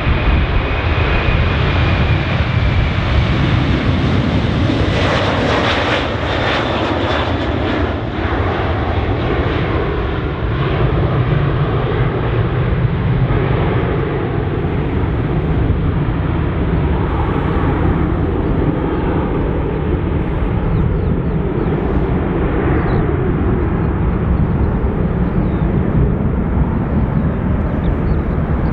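Airbus A330's twin jet engines at takeoff power as it lifts off and climbs away: a loud, steady roar with a high whine that falls in pitch over the first few seconds.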